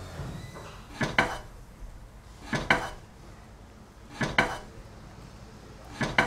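Pairs of sharp, clattering knocks, a quick double hit each time, repeating four times at even spacing about a second and a half apart.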